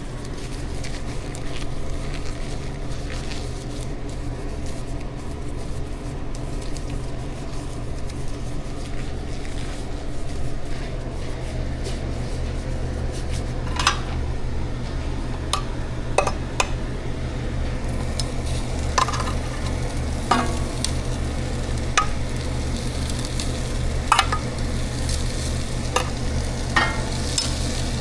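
Food sizzling in a pan over a steady low hum, with scattered clinks and scrapes of a utensil against the pan from about halfway on.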